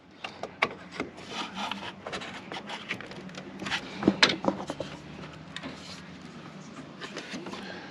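Small irregular clicks and scraping as a RAM stick is pushed and worked against a desktop motherboard's memory slot. The module will not seat in the slot.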